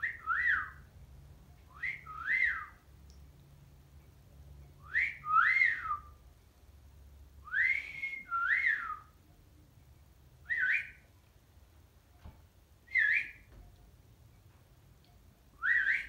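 A short whistled phrase repeated seven times, every two to three seconds. Each of the first four is a quick rising note followed by a rising-and-falling glide; the last three are single, shorter notes.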